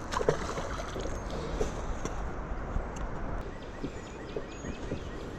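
Steady rush of a flowing river with a low rumble, and scattered light knocks and clicks from a kayak and fishing gear being handled.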